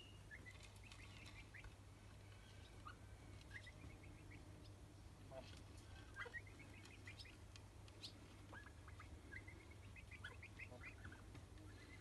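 Faint bird calls: scattered short chirps and quick rising notes, over a low steady hum.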